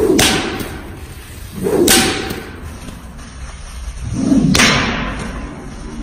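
A long whip cracked three times, about two to three seconds apart: each a sharp crack set in a duller, lower thud of sound.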